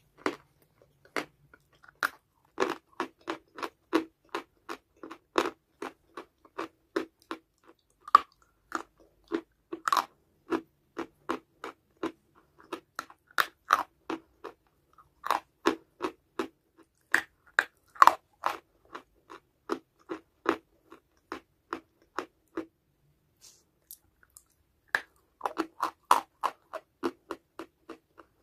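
Chalky clay being bitten and chewed: a steady run of crisp crunches about three or four a second. The crunching stops for about two seconds near the end, then starts again.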